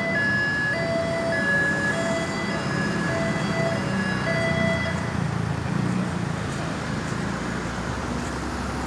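An emergency vehicle's electronic siren sounding steady high tones that step between pitches in an uneven on-off pattern, with no glides, ending about five seconds in. Traffic and engine noise runs underneath.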